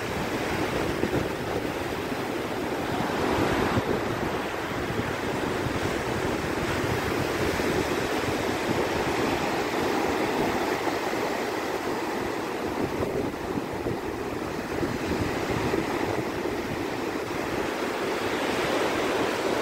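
Ocean surf breaking and washing up a sandy beach, a steady rushing wash of waves.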